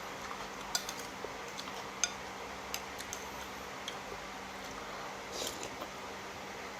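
A few faint, scattered clicks of cutlery against a bowl during a meal, over a steady background hiss.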